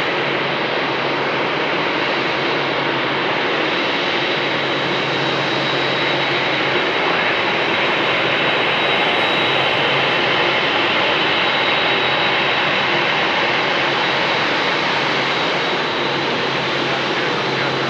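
Jet airliner's engines on final approach for landing: a steady rush with a thin high whine, swelling slightly midway.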